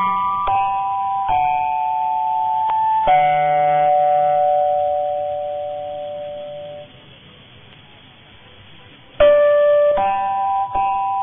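Music received on medium-wave AM radio: plucked-string notes ring out and die away, then after about two seconds of only faint background noise near the middle, the notes start again.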